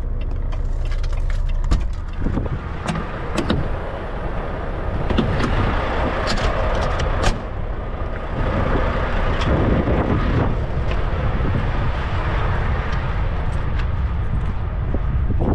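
Semi truck's diesel engine idling steadily, with a few knocks and clicks in the first half as the driver gets out of the cab, then footsteps crunching on gravel beside the trailer.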